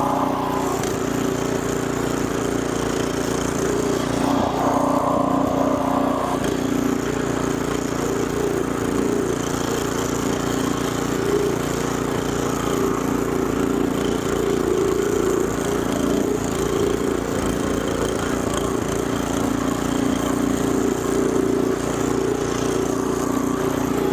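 Biltema ST56 snow blower's engine running steadily under load as it chews through snow, with a higher whine joining briefly about four seconds in.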